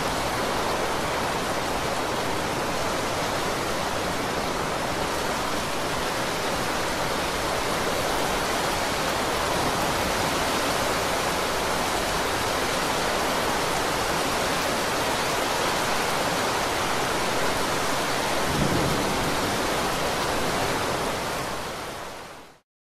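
Heavy rain falling in a steady, even hiss, fading out to silence near the end.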